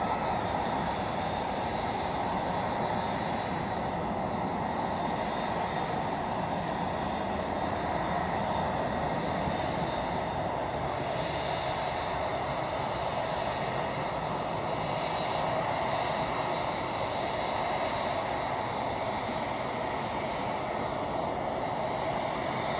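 Jet engines of an Emirates Airbus A380-800 running steadily on the ground: an even rushing noise with a faint high whine over it.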